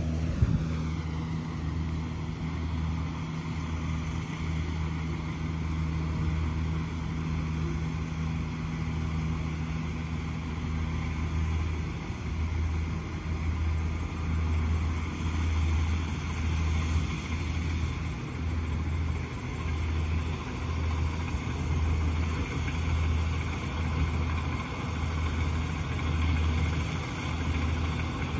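Kubota DC-70G PRO rice combine harvester's diesel engine running steadily while harvesting, heard as a fairly quiet low hum that swells and eases every second or so.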